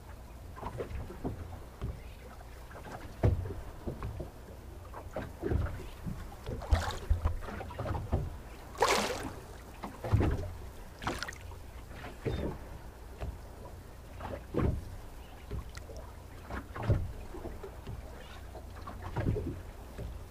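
Small waves lapping and slapping against the hull of a small boat: irregular splashes with dull low thumps, and one louder splash about nine seconds in.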